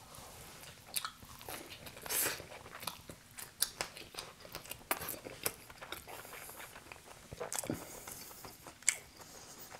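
A person chewing a bite of pizza close to the microphone: irregular crunches, smacks and wet mouth sounds.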